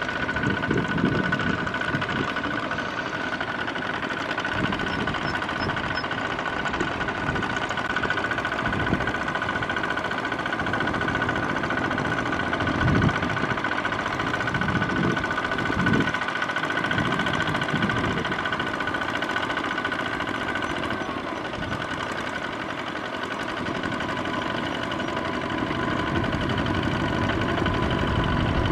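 Two-wheel walking tractor's single-cylinder diesel engine running steadily under load while its steel cage wheels churn through flooded paddy mud.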